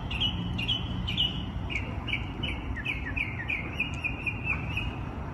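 A bird singing: a run of short, clear chirps at about two a second that speed up into a quick trill about four seconds in, over low background noise.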